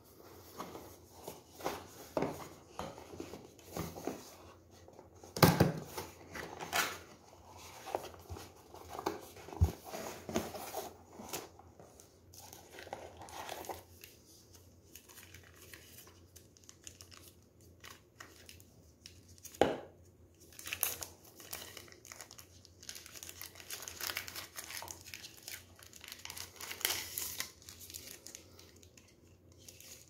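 Cardboard packaging being handled and opened, with scrapes and a few sharp knocks of the box, then a thin plastic sleeve crinkling as it is pulled off a handheld vacuum cleaner in the second half.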